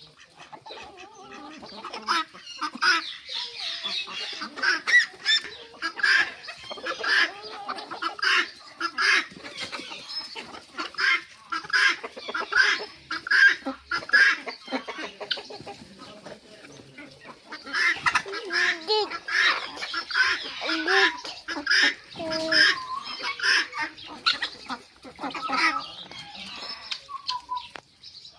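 A mixed flock of farmyard poultry calling: chickens clucking among harsh, repeated calls from other fowl, coming in rapid runs with a short lull partway through.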